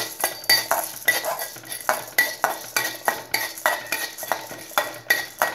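Split chickpeas (chana dal) being stirred as they dry-roast in a stainless steel kadai: a spatula scrapes and clinks against the steel about three times a second, each stroke ringing briefly, with the hard lentils rattling across the pan.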